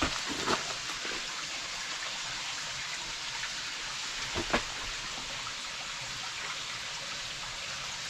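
Steady rush of running water in a rocky cave-gorge, with two short knocks, about half a second in and, louder, about four and a half seconds in.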